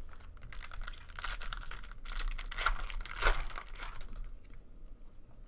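Card-pack wrapper being torn open and crinkled, a papery rustling and ripping that is loudest a little after two and three seconds in and dies away near the end.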